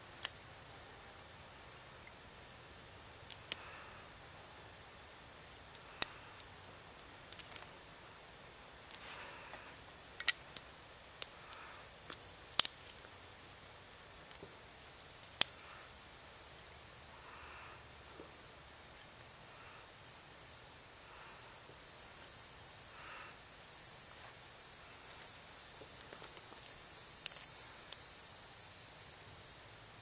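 Steady high-pitched chorus of insects, swelling louder about halfway through and again near the end. A handful of sharp clicks and snaps are scattered through it as small twigs are handled and laid for a fire.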